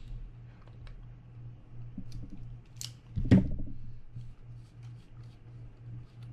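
Clicks and small handling noises of a Daiwa BG90 spinning reel being turned over and worked by hand during disassembly, with one louder knock a little over three seconds in. A low steady hum sits underneath.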